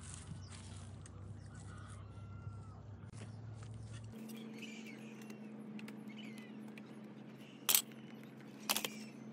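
Faint outdoor ambience: small birds chirping over a low steady hum that changes pitch about four seconds in, with two sharp clicks near the end.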